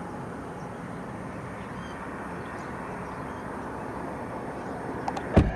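Steady outdoor background noise with a few faint, short high chirps, and one sharp knock just before the end.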